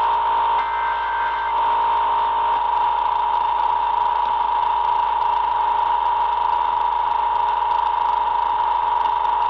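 Emergency Alert System test tones through a small AM radio's speaker. About a second in, the last of the warbling digital header bursts ends, and the steady two-tone attention signal that comes before the spoken message follows.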